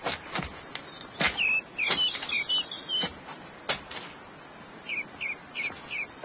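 Small birds chirping in short, quick, repeated calls, in groups of three or four. Several sharp knocks or footfalls are scattered through, the loudest about a second in.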